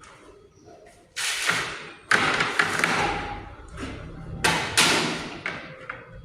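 A series of knocks and thuds, with clattering noise between them; the loudest come about two seconds in and again near five seconds.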